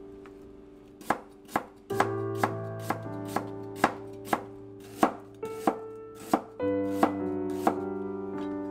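Kitchen knife chopping on a cutting board, about two cuts a second beginning about a second in, over background music.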